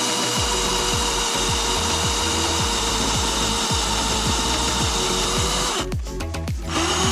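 Cordless drill running steadily with an extractor bit, working a broken bolt out of a snowmobile's secondary clutch. It stops briefly about six seconds in and then starts again.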